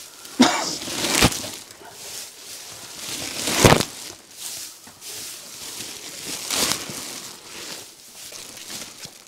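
Dry loose hay rustling and crunching as it is gathered up by hand and stuffed into a sack. There are a few louder surges of rustling: about half a second to a second in, near the middle and again later.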